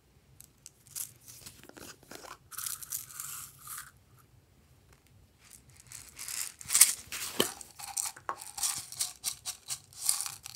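Small plastic containers being handled and opened, with sprinkles and confetti rattling and pattering out onto slime, full of small clicks. The sound comes in two spells, a short one early and a longer, louder one from about halfway.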